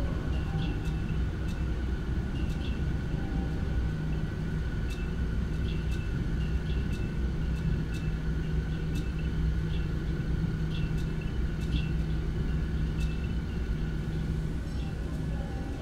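Steady low rumble and hum of running machinery, with sharp metallic clicks at irregular intervals, roughly one a second.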